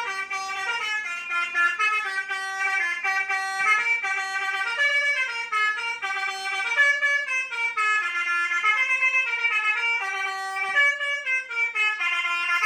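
A 100-watt 24-volt electric bus horn playing a melody: a continuous run of held horn notes stepping up and down in pitch every fraction of a second.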